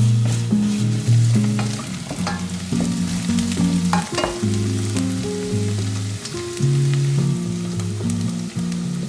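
Food sizzling in a pan, with scattered clicks of a utensil stirring against it, over background music with low, changing notes.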